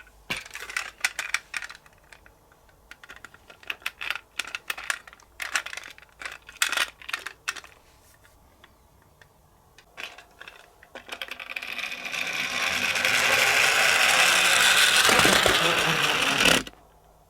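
Toy minicars clicking and clattering against hard plastic in a scatter of sharp rattles, then a rolling noise that builds over about five seconds and cuts off suddenly.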